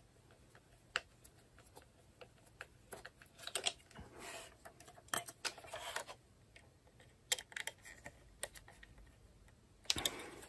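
Scattered small clicks and taps of plastic parts as a weather station's wind vane is fitted and its screw tightened with a small screwdriver, with a few brief scuffing rustles of the housing being handled.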